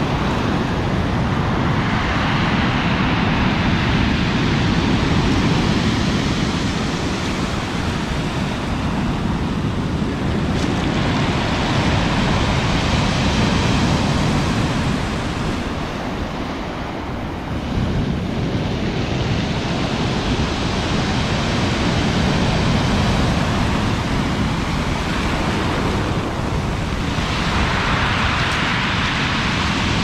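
Storm surf on the Black Sea breaking and washing up a pebble beach. It is a continuous loud rush that swells and eases every few seconds as each wave comes in and draws back.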